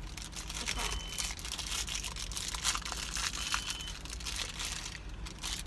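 Plastic toy wrapper being crinkled and peeled open by hand, a continuous run of small sharp crackles and rustles.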